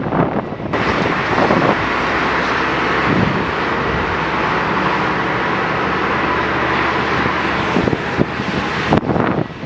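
Airliner engines running, a steady wide noise with a faint high whine through it, starting abruptly under a second in and falling away just before the end.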